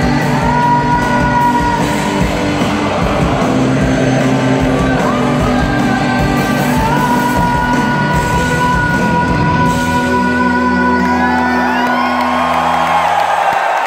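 Live rock band of electric guitars, bass and drums, with a male singer holding long notes over it. The band sustains a closing chord that cuts off shortly before the end, while the audience yells and whoops.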